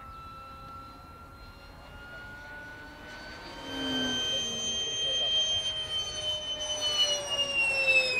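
Electric ducted-fan model jets whining overhead. A steady high whine runs first; about three and a half seconds in, a louder, higher whine comes in and slowly drops in pitch as a jet passes.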